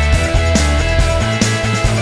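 Background music with a steady drum beat and a strong bass line.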